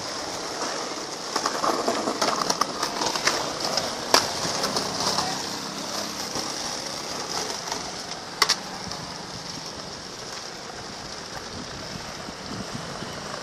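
Skateboard wheels rolling over stone paving tiles: a steady rough rumble with a fast clatter over the joints, and two sharp clacks, about four seconds in and about eight and a half seconds in.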